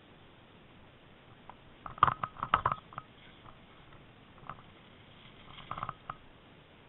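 Bicycle and camera mount rattling and knocking as the bike jolts over icy, snowy road, in two bursts of quick clicks: a louder one about two seconds in and a shorter one near the end, over a faint steady hiss.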